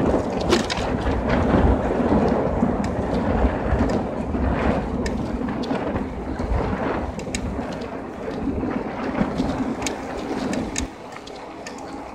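Wind rumbling on the bicycle-mounted camera's microphone, mixed with tyre noise and light rattling clicks as the bike rolls along an asphalt road. The rumble drops suddenly about a second before the end.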